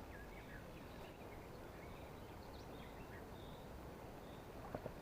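Faint bird calls, a few short scattered chirps, over quiet outdoor background noise, with a small click near the end.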